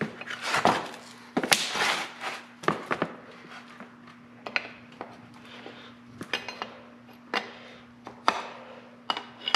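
Hand ratchet and socket on the end-cover bolts of an M35A2 air pack: scattered metallic clicks and clinks, with scuffing of hands and tools over cardboard in the first couple of seconds.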